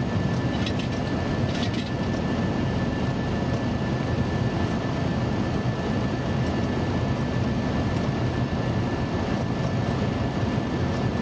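Boeing 737 cockpit noise on final approach: a steady rush of airflow and engine noise with a low hum, and a faint constant high whistle.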